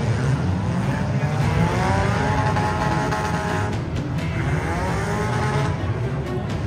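Car engine running with a heavy, steady rumble, revved up and back down twice.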